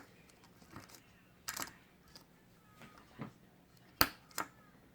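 Small sharp clicks and taps from a car key fob's plastic shell and coin-cell battery being handled and fitted, a few scattered ticks with the two loudest close together near the end.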